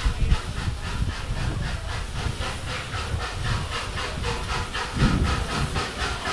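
LMS Princess Coronation Class Pacific steam locomotive 6233 'Duchess of Sutherland' moving slowly along the platform, hissing steam with an even beat of about four to five strokes a second. A dull low thump about five seconds in.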